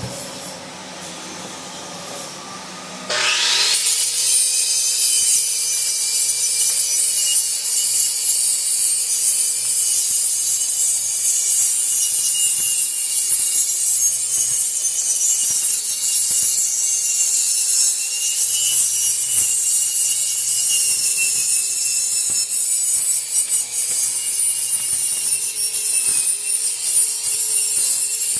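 Angle grinder switched on about three seconds in, grinding slag off the back of a CNC-cut metal sign. It makes a loud, steady grind with a high whine that wavers slightly as the disc is worked across the metal.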